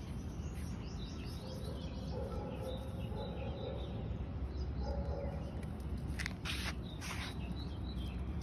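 Outdoor ambience: birds chirping in the background over a steady low rumble, with a few short scraping or rustling sounds about six to seven seconds in.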